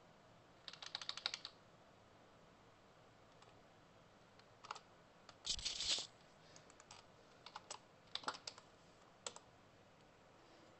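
Computer keyboard being typed on in short bursts of keystrokes with pauses between them, the densest and loudest run of keys about halfway through.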